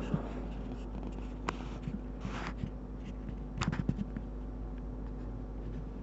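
Fingers handling a small plastic-scaled keychain folding knife close to the microphone: a few light clicks and scratchy rustles, with a cluster of clicks a little past halfway. A steady low hum runs underneath.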